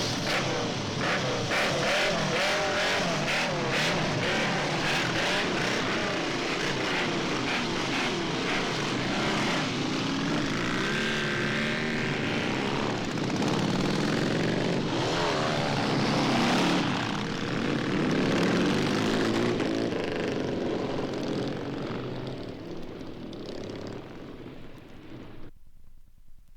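Several motorcycle engines running and revving together as a group pulls away, the sound fading out over the last few seconds and cutting off just before the end.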